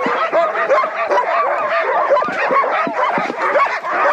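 A chorus of many sled dogs barking, yipping and howling at once, dense and unbroken: the excited clamour of a harnessed team waiting to be let go.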